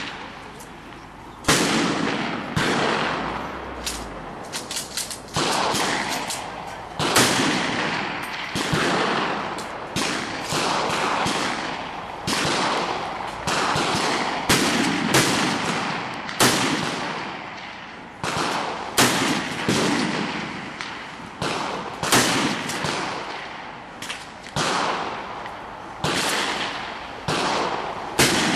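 Rifle shots on a shooting range, fired irregularly at about one a second, some in quick pairs. Each shot rings out with a long echo.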